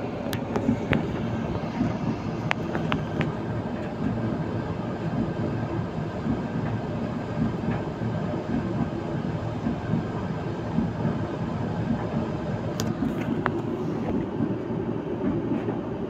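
Candy Smart 8 kg tumble dryer running, laundry tumbling in the turning drum: a steady rumble with a few light clicks now and then.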